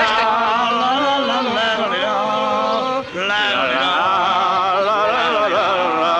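A voice singing with strong vibrato in long held notes, with a brief break about three seconds in.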